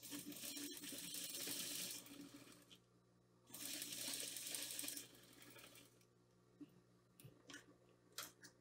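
Electric sewing machine stitching a seam in two short runs, about two seconds and then about a second and a half, with a pause between. A few light clicks follow as the fabric is handled.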